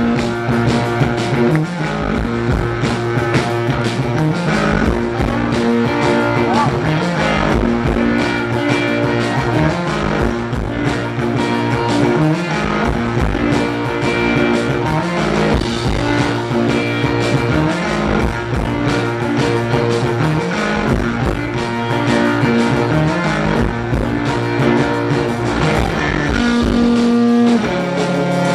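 Blues-rock band playing live, a repeating electric guitar riff over a steady drum beat.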